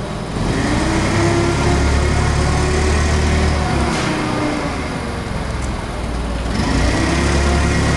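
Caterpillar GC25K forklift's propane-fuelled engine running as the forklift drives about, the engine speeding up and easing off twice.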